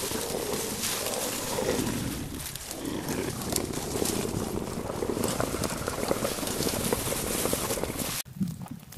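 A continuous rough animal growling that swells and fades, then cuts off abruptly about eight seconds in.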